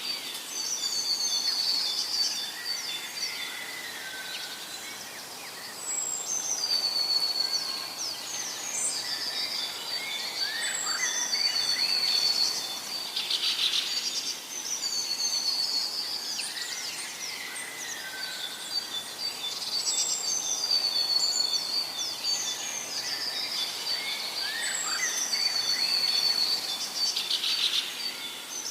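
Songbirds chirping and trilling, with a high song phrase coming back every six or seven seconds over a soft steady hiss.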